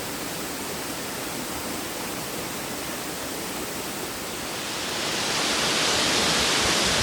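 Steady rushing water that swells louder and brighter about five seconds in, as the sound of a waterfall comes up.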